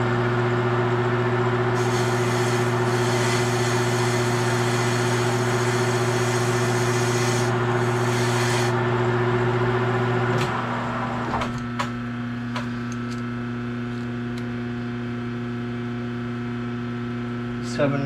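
Manual metal lathe taking a turning cut on a D1-8 chuck backing plate: the steady running hum of the machine with the hiss of the tool cutting, brightest between about two and nine seconds in. About ten seconds in, the cut ends and the sound drops to the lathe's steady running hum, with a few light clicks.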